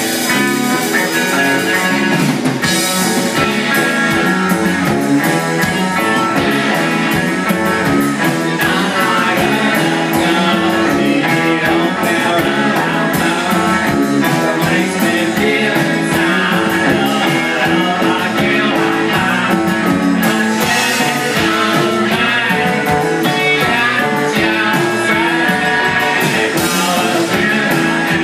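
Rock music with guitar, playing steadily and loud.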